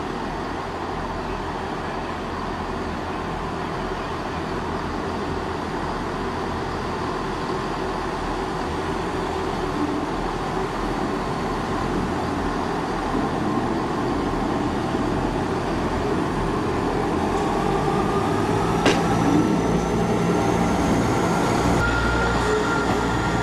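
ScotRail Class 158 diesel multiple unit running past on curved track, its engine and wheel rumble slowly growing louder. In the last few seconds thin wheel squeal sets in, rising slightly in pitch as the wheels work the curve, with one sharp click.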